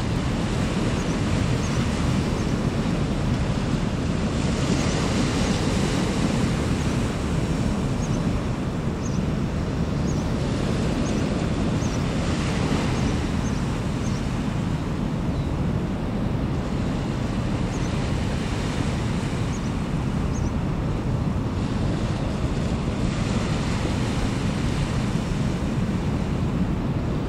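Wind buffeting the microphone: a steady low rumbling noise that holds at one level, with a few faint high chirps now and then.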